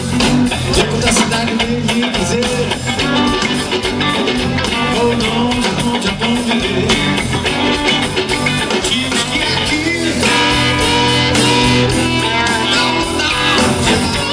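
A blues band playing live: electric guitars, bass guitar and drums in a steady groove.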